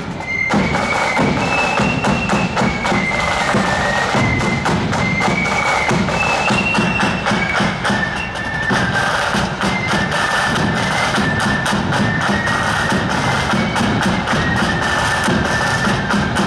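Marching flute band playing a tune as it parades: a high flute melody over a steady beat of snare and bass drums.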